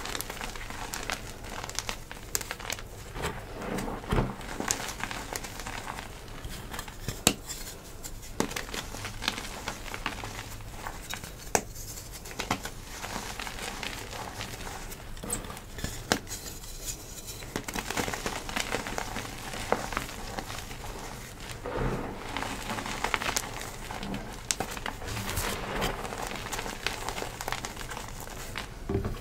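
Crumbled blocks of fresh gym chalk crushed and squeezed in bare hands: a dense, irregular crunching and crackling, with many small sharp snaps, as the chalk breaks down into powder.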